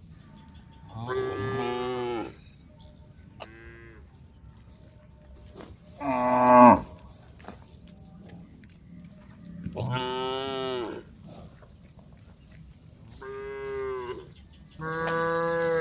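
Cows mooing: about six separate drawn-out calls, some falling in pitch at the end, the loudest about six seconds in.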